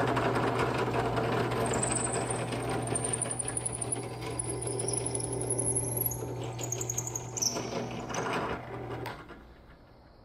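Benchtop drill press running, its bit drilling through a wooden frame part with plywood shims beneath. The motor hums steadily, with a thin high whine that rises in pitch partway through. About nine seconds in, the press is switched off and the sound drops away.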